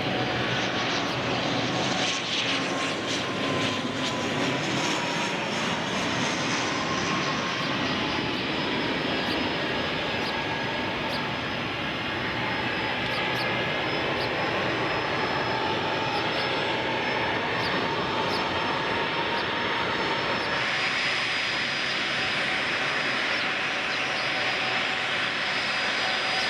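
Aircraft engines running steadily, with a faint whine that slowly falls in pitch over the first ten seconds or so. A brighter hiss joins about twenty seconds in.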